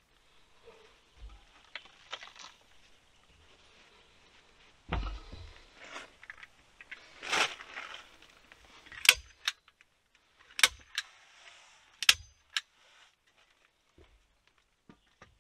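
Hand-operated staple gun firing staples into a log to fasten a fabric strip, about four sharp clacks in the second half. Before them, a dull thump and the rustle of the fabric being handled.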